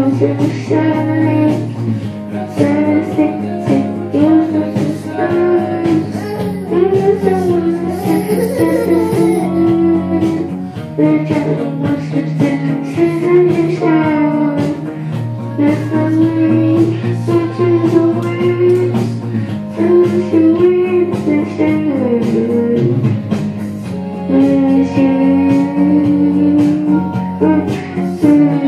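A young boy singing a melody into a handheld microphone over music with guitar and a steady bass line.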